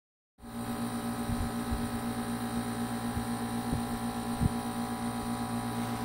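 Portable air conditioner, converted to water cooling with a plate heat exchanger in place of its condenser, running with a steady low hum. A few soft low knocks come through now and then.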